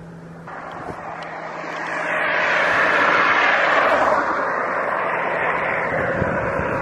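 Farm tractor coming up along the road, its engine and tyre noise rising over about two seconds and then holding steady.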